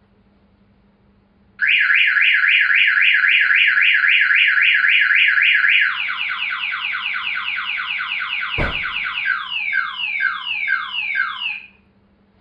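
Viper 3400V car alarm siren going off in full alarm. It starts about a second and a half in as a fast warble of about five pulses a second, changes to quicker falling chirps, then to slower falling sweeps, and cuts off abruptly near the end. A single low thump comes partway through.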